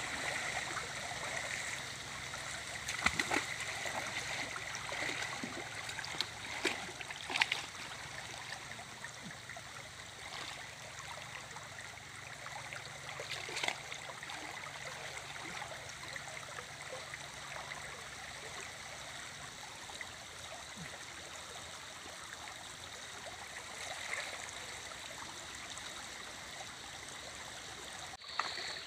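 Muddy stream flowing fast around tree trunks, with a few splashes as a person wades and moves through the water, the sharpest about 3, 7 and 13 seconds in.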